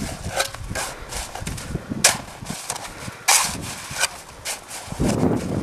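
Small hand tool scraping and chipping into the frozen, water-glazed crust of a snow igloo mound: a series of irregular crunchy strokes, the loudest about two and three seconds in.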